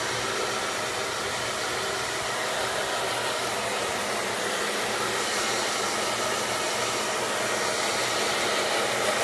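Handheld hair dryer running steadily, blowing on a freshly bathed puppy's wet fur.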